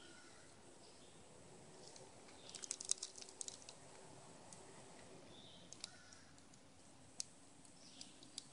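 Eastern gray squirrel eating bird seed at close range. There is a quick run of small sharp cracks and clicks about three seconds in, then a few single clicks spread through the rest.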